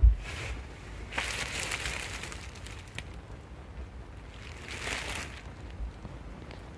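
A thump of the phone being bumped, then two bouts of crinkly rustling, one about a second in and one near five seconds, as a jacket in a plastic cover is handled.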